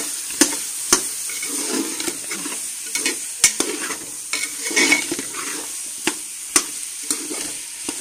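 Metal spatula stirring and scraping potatoes and cauliflower stems through frying masala in a pressure cooker pot, over a steady sizzle. Irregular sharp clacks of metal against the pot come every second or so.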